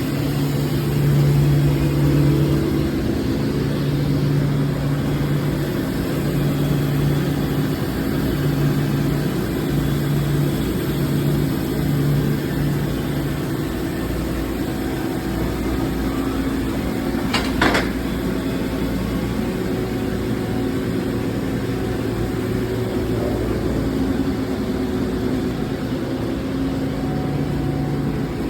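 Amada HFA 530 CNC band saw running: a steady machine hum with a low tone that pulses on and off about once a second through the first half and returns near the end, and one sharp clack about two-thirds of the way through.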